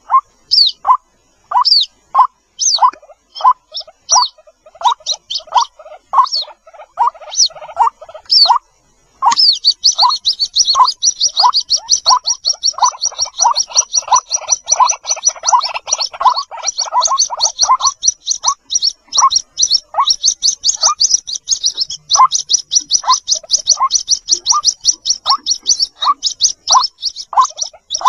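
White-breasted waterhen chicks peeping for their parent: short high peeps mixed with lower chirps, several a second. After a brief pause about nine seconds in, the high peeps run on in a fast, unbroken series over the lower chirps.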